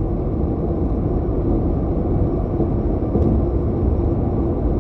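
Steady low rumbling noise with no breaks, like vehicle road noise.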